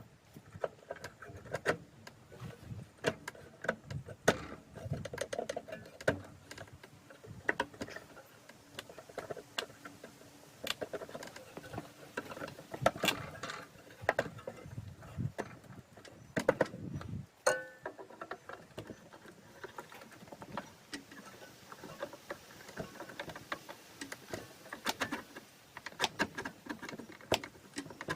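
Irregular clicks, knocks and scrapes of hand work with tools and hard materials, with a few heavier low thuds around the middle.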